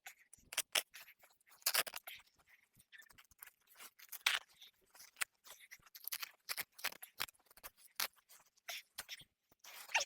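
A run of short, irregular scrapes and clicks, a few to several a second, from hand work on a dismantled raised garden bed.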